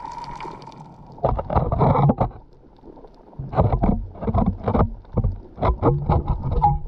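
Water sloshing and bubbling against an underwater camera as it moves over a reef, heard as a series of rough, irregular bursts.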